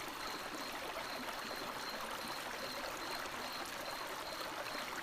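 Steady rush of river water flowing, with a night insect's thin, high, pulsing trill running over it.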